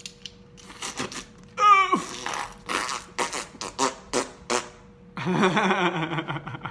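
A man making wordless vocal noises: a short falling cry about one and a half seconds in, a run of short sounds, then a longer wavering sound near the end.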